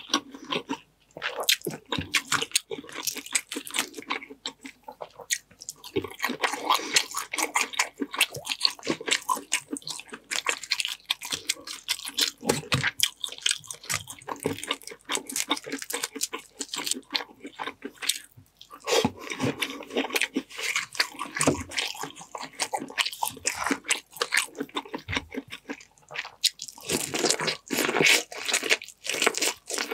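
Close-miked wet chewing and crunching of buttery boiled seafood, with crab and shrimp shells being pulled apart by hand. The crunching gets denser near the end as sweet corn on the cob is bitten into.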